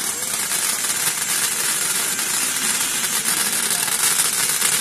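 Sesame seed color sorter running: a steady, loud hiss with a fast continuous crackle, from its compressed-air ejector jets blowing rejected seeds out of the falling stream.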